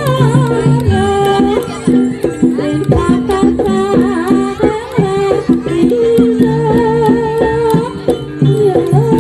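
Javanese jaranan ensemble music: hand-drum strokes and percussion under a wavering, bending melody line.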